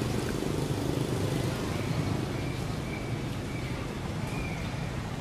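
Steady low outdoor rumble, like distant traffic, with a few faint short high tones in the middle.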